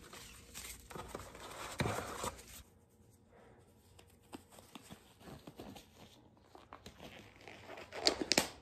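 Disposable non-latex glove crinkling and rustling as it is handled and pulled onto a hand, with a louder crinkle near the end.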